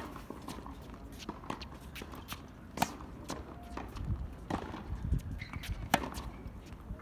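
Tennis rally on a hard court: sharp pops of the racket striking the ball, the loudest about three seconds in and again near the end, with fainter clicks and thuds of bounces and footwork between.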